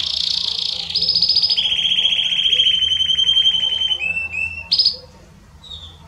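Belgian canary singing a run of fast rolling trills, each held a second or so at one pitch before jumping to a higher or lower one. The song breaks off about five seconds in, followed by a few soft short chirps.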